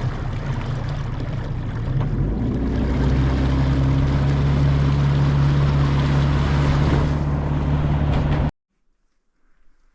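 Small boat's outboard motor running under way, its hum getting louder and steadier about two seconds in as it picks up speed, with water rushing past. The sound cuts off suddenly near the end.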